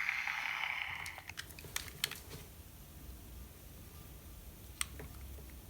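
Tape hiss from a Sony M-100B microcassette recorder's small speaker dies away about a second in. A quick run of sharp mechanical clicks follows, then one more click near the end, from the recorder's buttons being pressed.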